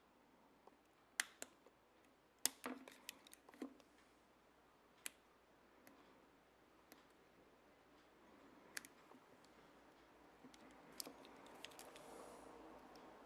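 Double-sided mounting tape being cut by hand: a series of faint, sharp clicks, clustered in the first few seconds and then spaced out, with a soft rustle building near the end.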